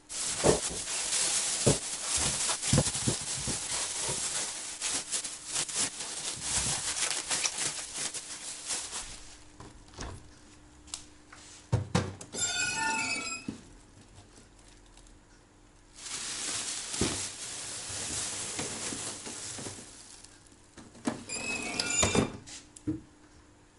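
Plastic bags crinkling and rustling, then a plastic freezer drawer squeals briefly as it slides out. More rustling as bags of horseradish are packed into it, and a second short squeal near the end as the drawer is pushed back.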